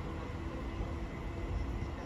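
Hitachi Pop ETR104 electric multiple unit running away into the distance: a steady low rumble with a faint tone over it.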